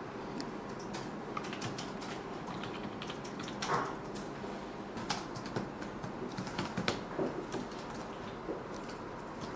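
Typing on a computer keyboard: irregular keystroke clicks, busier in the second half, over steady room noise.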